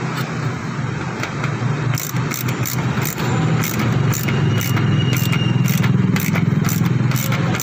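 A ratchet wrench clicking quickly and evenly, about four clicks a second, as a socket turns the handbrake cable bracket bolt. Under it runs a steady low mechanical hum that grows louder about three and a half seconds in.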